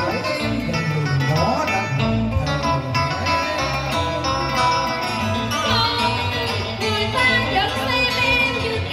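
Live cải lương band music led by plucked string instruments, with bending notes, playing steadily throughout.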